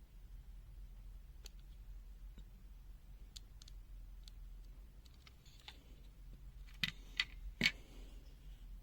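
Small plastic parts of a dismantled digital multimeter being handled: scattered faint clicks and a brief scrape, then three sharper clicks in quick succession near the end, over a faint steady low hum.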